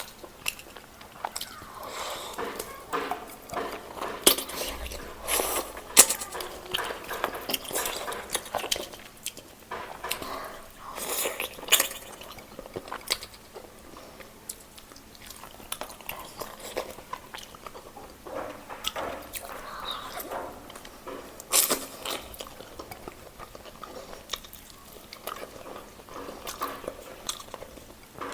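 Close-up eating of roast chicken: irregular biting and chewing, with many small crunches and clicks.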